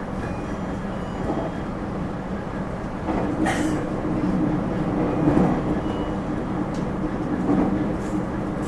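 Thyristor phase-controlled 811 series electric multiple unit running, heard from inside the car: a steady hum from the train, with a short hiss about three and a half seconds in.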